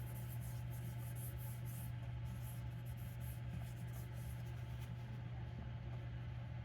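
Vintage Schrade jackknife blade drawn lightly back and forth across an oiled soft Arkansas stone: faint, rhythmic scraping strokes that die away about halfway through. A steady low hum runs underneath.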